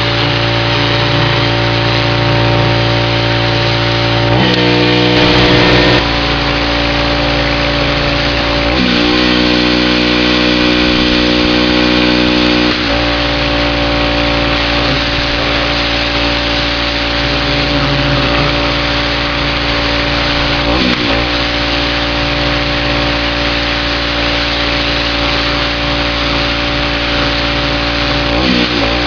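Pressure washer's engine running steadily under the hiss of the high-pressure spray, its pitch shifting abruptly several times.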